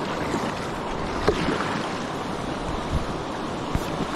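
Steady rush of river water from a small boat on the river, with wind buffeting the microphone and a few light knocks, about a second in, around three seconds and near the end.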